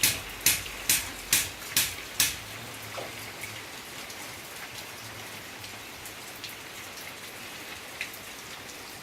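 Steady rain hiss. In the first two seconds or so, loud drips strike a surface about twice a second, and after that there are only a few scattered drips.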